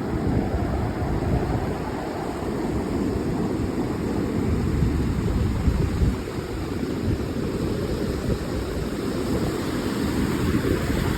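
Ocean surf: a steady rush of waves breaking and washing in, heavy in the low end, gently swelling and easing.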